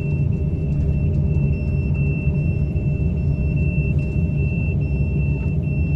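Excavator engine running steadily with a low rumble, and a thin, steady high whine above it.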